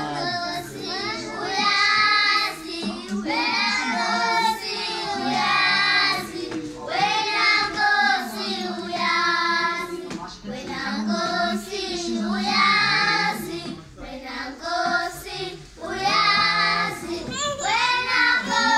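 A group of children singing a gospel song together, in phrases of a second or two.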